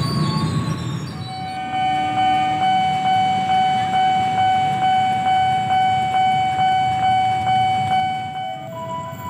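An electric commuter train running by with a low rumble and a stepped motor whine. From about a second in, a level-crossing warning bell rings with an even beat of a little over two strikes a second, and it stops near the end.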